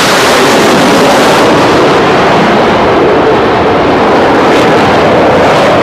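Jet engines of US Navy Blue Angels F/A-18 Hornets, very loud and steady, as the formation passes low overhead and pulls away.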